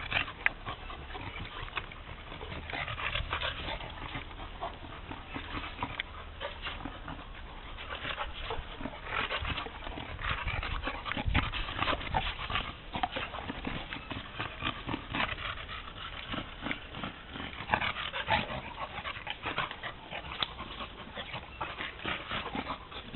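Two dogs, a tan shepherd-type dog and a fluffy black puppy, play-fighting: a continuous, irregular stream of short dog vocal noises and scuffling, with no pause.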